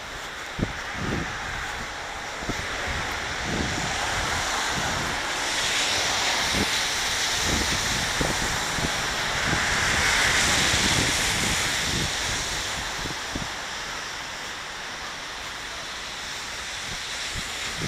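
Tyre hiss from traffic on a wet street, swelling about six seconds in and easing off after about twelve, as a car passes. Soft low thuds of footsteps run underneath.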